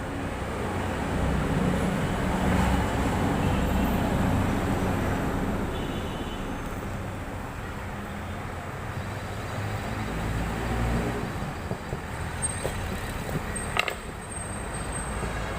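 Road traffic going by, a steady rumble that swells as vehicles pass about a second in and again around ten seconds in, with a sharp click near the end.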